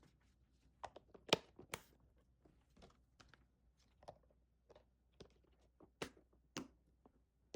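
Faint, irregular light clicks and taps of kitchen containers and utensils being handled, with a few sharper knocks.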